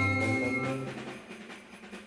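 Wind orchestra holding a chord that dies away about a second in, leaving a quiet pause before the next phrase.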